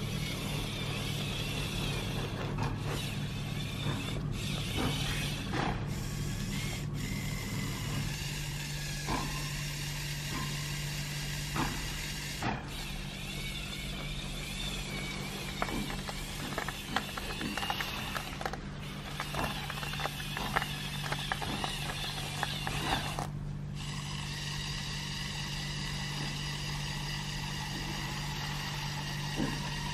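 Electric motors and plastic gears of a Lego Technic 42030 Volvo L350F remote-controlled wheel loader whirring steadily, with scattered clicks and ticks as it drives and works its bucket through snow.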